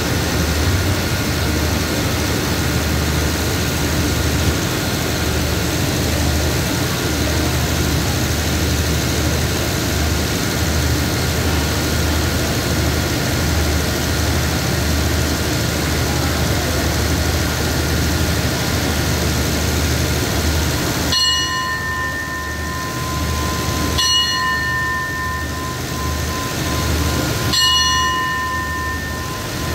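A stopped passenger train's diesel engine runs steadily at the platform with a low pulsing hum. About two-thirds of the way in, a bell-like ring sounds three times, about three seconds apart.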